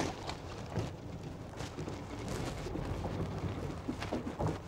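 Wind rumbling on the microphone over choppy sea water around a small fishing boat, with a few light knocks as the longline is handled.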